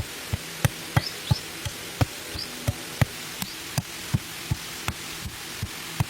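A steady series of sharp knocks, about three a second, each with a dull low thud. A few short high chirps come in during the first half.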